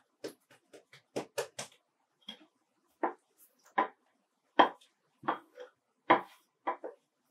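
Hands patting bread dough flat on a wooden board, then a rolling pin rolling the dough out and knocking on the board: a string of short taps and thuds, the heavier ones in the second half.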